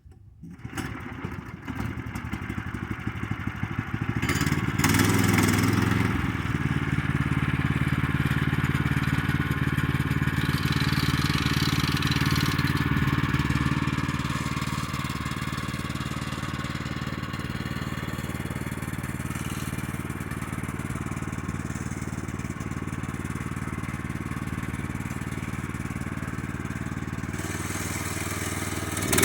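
Gasoline engine of a Woodland Mills portable band sawmill running steadily while milling a cherry log. It comes up over the first few seconds, runs loudest for several seconds, then settles a little quieter from about halfway through.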